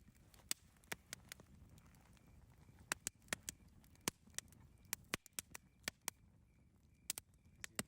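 Campfire crackling: sharp, irregular pops from the burning wood, well over a dozen, over a soft low rush of the flames.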